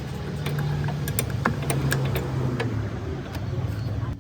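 A car engine running steadily, with scattered sharp clicks and knocks over it.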